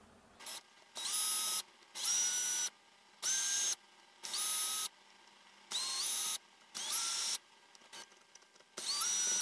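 Cordless drill/driver running in about seven short bursts, each a motor whine that rises quickly and then holds steady. It is driving screws into the plastic clamshell housing of a power tool.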